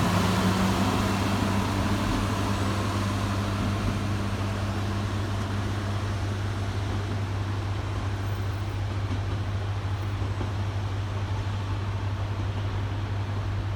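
Tosa Kuroshio Railway TKT-8000 series diesel railcar running as it pulls away, its sound slowly fading, over a steady low hum.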